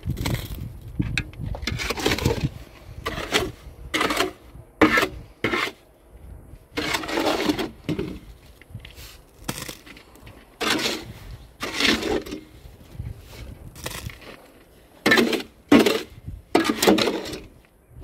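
A series of about a dozen short, irregular scraping and knocking strokes.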